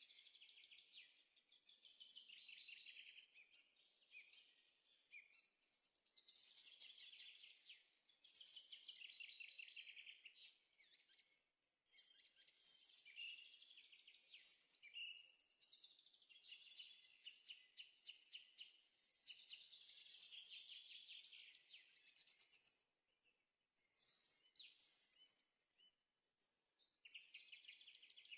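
Faint songbird singing: long phrases of rapid trills and chirps, a few seconds each, separated by short pauses.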